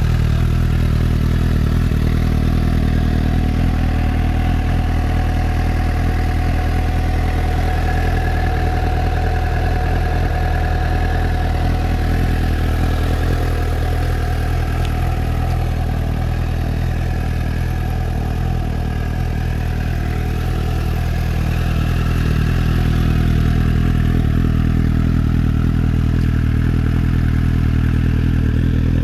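Suzuki GSX-S750's inline-four engine idling steadily, with no revving, a little louder in the last few seconds.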